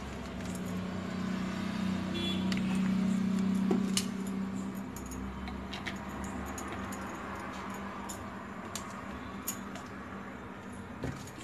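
Oil heating in a non-stick kadai on a gas stove, with scattered light ticks and crackles over a steady low hum that is loudest in the first few seconds.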